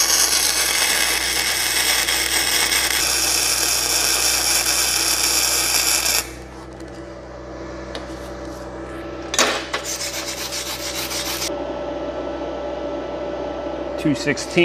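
Flux-core wire-feed welding arc, YesWelder gasless MIG machine with the wire feed turned up to about 250, crackling steadily for about six seconds and then cutting off. A shorter second burst of noise follows about three seconds later over a low steady hum.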